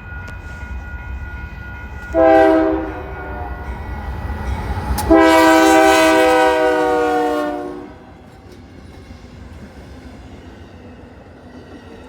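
Union Pacific GE AC44CW diesel locomotive leading a passenger train and sounding its multi-chime air horn: a short blast about two seconds in, then a louder long blast of nearly three seconds, over the low rumble of the passing train. The rumble drops away after the long blast.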